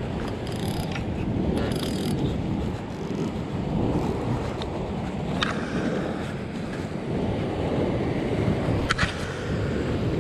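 Wind buffeting the microphone over waves washing against the rocks, a steady rushing noise, with a couple of short sharp clicks about halfway through and near the end.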